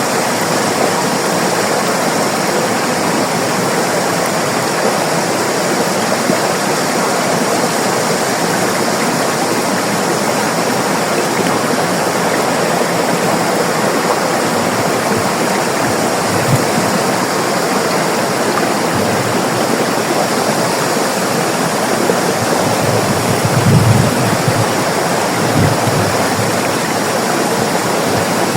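River water flowing and rushing steadily, with a few brief low thumps about three-quarters of the way through.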